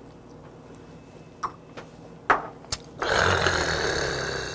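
A few light clicks, then about three seconds in a man lets out a long breathy throat exhale, a 'kha' that fades over about a second and a half: the reaction to knocking back a shot of liquor.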